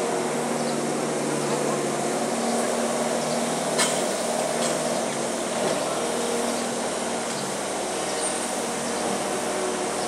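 Bobcat skid steer's engine running steadily as the machine manoeuvres, heard at a distance, with a single sharp click about four seconds in.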